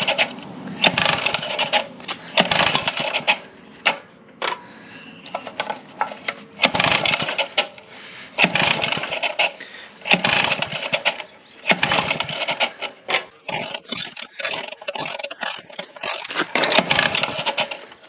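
Bed edger's small engine being pull-started over and over: about seven rasping whirs of the recoil starter rope, a second or few apart, the engine turning over but never catching. It is a no-start that turns out to be caused by stale fuel.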